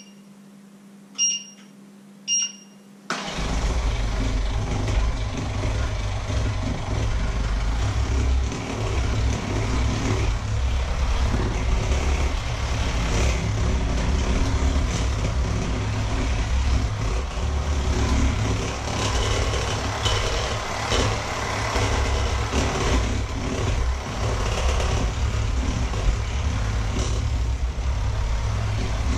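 Two short electronic beeps a second apart, then an electric hand mixer switches on about three seconds in and runs steadily, its beaters whisking batter in a steel bowl.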